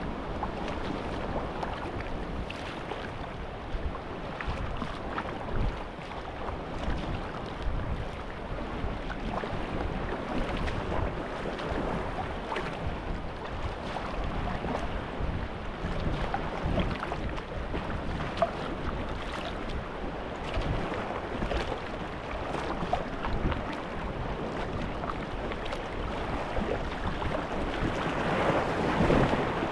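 Sea water sloshing and splashing against a Stellar S18 G2 sea kayak's hull as it is paddled through light chop, with paddle blades dipping and wind buffeting the microphone. The water noise grows louder near the end as waves wash against rocks close by.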